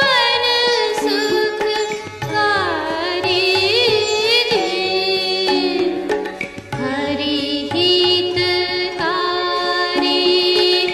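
Background music in an Indian classical style, with a gliding, ornamented melody line over sustained notes.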